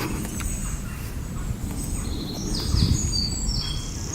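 Small birds singing in short high chirps and trills, starting about halfway through, over a steady low rumbling noise.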